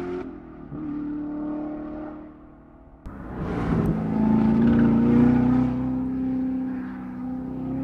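Supercharged 6.2-litre LT5 V8 of a 2019 Chevrolet Corvette ZR1 running at speed on a race track. Its note fades as the car draws away, then after an abrupt cut about three seconds in it comes back louder, rising a little in pitch as the car accelerates through a bend before holding steady.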